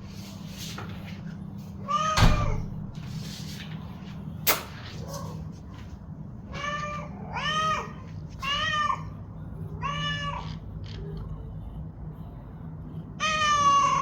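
A domestic cat meowing over and over, about six rising-and-falling meows, the last one the longest. There is a single short, sharp click about four and a half seconds in, and a steady low hum throughout.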